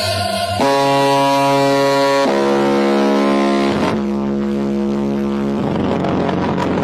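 Music played loud through the Brewog Audio carnival sound system: three long held notes, each at a different pitch, followed by a rougher stretch near the end.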